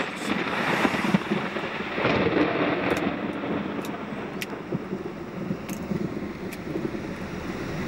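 Thunderstorm ambience: a steady low rumble with wind noise, broken by a few sharp ticks.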